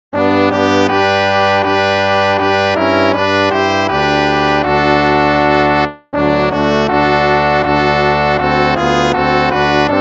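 Instrumental hymn music with sustained notes. It cuts off abruptly about six seconds in and starts again almost at once.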